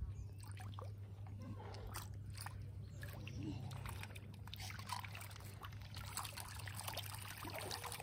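Fish feeding at the surface of a pond: faint, scattered small splashes, slurps and pops as many fish break the water together.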